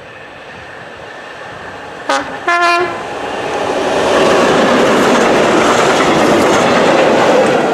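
Class 73 locomotive sounding two short horn blasts, the second slightly longer, as it approaches. The locomotives and wagons then pass close by, with loud wheel-on-rail noise building up and holding.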